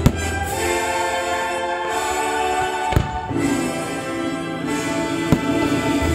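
Orchestral music playing, broken by three sharp bangs: one at the start, one about three seconds in and one about five seconds in, from firework shells bursting.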